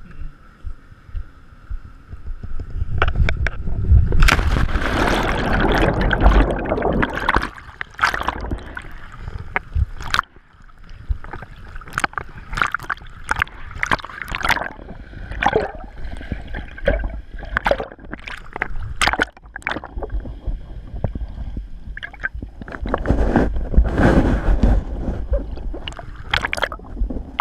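Lake water splashing and slapping against a GoPro camera at the water surface, with many sharp slaps and a loud surge of churning water about four seconds in and again near the end.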